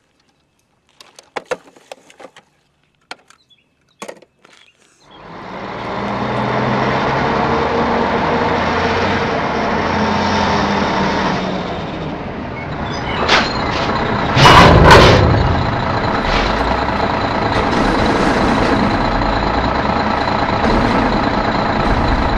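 Dump truck sound effect: a heavy truck's diesel engine starts running loud and steady about five seconds in, with a loud burst of hiss about two-thirds of the way through. Before it there are only a few faint scattered clicks.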